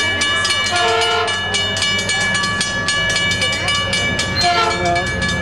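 Grade-crossing bell ringing at about four strikes a second as a Metrolink diesel train approaches, with two short chord blasts of the locomotive's horn, about a second in and again near the end. Under them the locomotive's low rumble grows louder.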